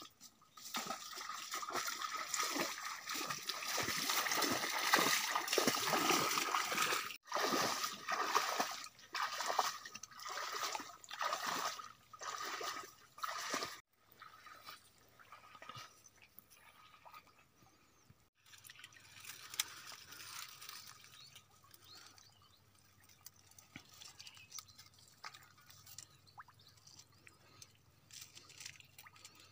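Shallow swamp water sloshing and splashing as someone wades and works by hand among reeds and sticks. The sound is heaviest and most continuous in the first seven seconds, comes in choppy bursts until about fourteen seconds, and is quieter and more sporadic after that, broken by a few sudden cuts.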